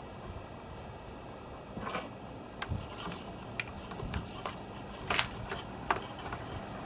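Scattered light clicks and taps of hand tools and metal parts being handled while a hose reel is taken apart, at an irregular pace, with a sharper clack about five seconds in.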